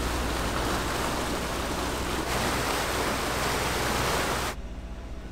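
Loud, steady rush of wind and water on a catamaran under way, with a low engine drone beneath it. About four and a half seconds in it cuts off suddenly, leaving only a quieter engine hum.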